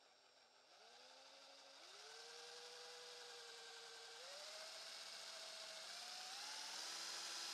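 Cordless drill boring dowel holes into a knotty alder frame, its motor whine rising in pitch in several steps and growing louder.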